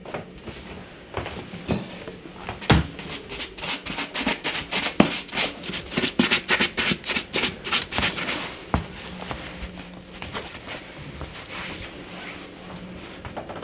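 Black leather boot being buffed by hand, with quick rubbing strokes about five a second for several seconds, then softer rustling of fabric being handled.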